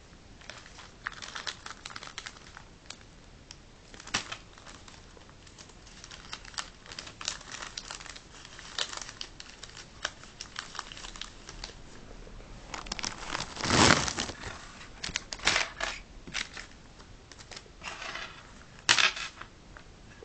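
Clear plastic packaging bag crinkling and rustling in irregular bursts as a small padded camera pouch is handled and taken out of it. The loudest crackle comes about two-thirds of the way through, with another sharp one near the end.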